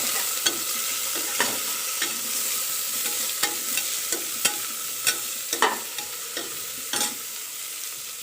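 Chopped onion frying in hot oil in a pressure cooker: a steady sizzle with irregular sharp clicks and scrapes of a spoon stirring against the pot. The sizzle eases off slightly toward the end.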